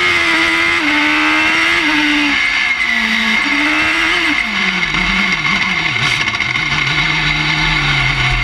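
Suzuki Hayabusa inline-four motorcycle engine in a rallycross crossbuggy, heard from the cockpit under racing load. Engine speed holds high with a few abrupt steps for the first half, then falls and wavers at lower revs before climbing again near the end, with a steady high whine over it.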